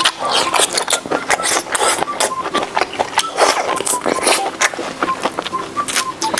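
Close-miked eating of marinated seafood (sea snails and mini octopus): wet slurping, sucking and chewing with many quick, sharp smacking clicks.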